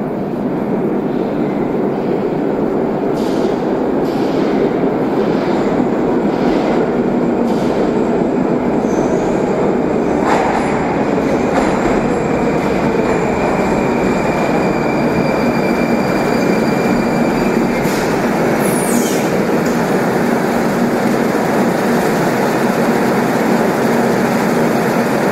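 Moscow Metro train arriving at an underground platform: a loud steady rumble of wheels and motors with a steady whine over it. About three-quarters through, a high squeal slides down in pitch as the train brakes to a stop.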